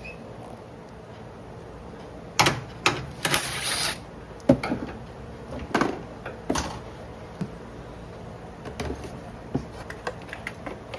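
Irregular metallic clicks and knocks from hand tools and loosened parts being handled during removal of a car starter, with a short rasping scrape about three seconds in.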